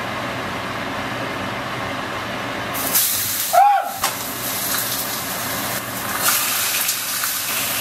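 Hot oil sizzling and spitting in a frying pan as fish fries, the hiss growing sharply louder and brighter about three seconds in, with small crackles through it.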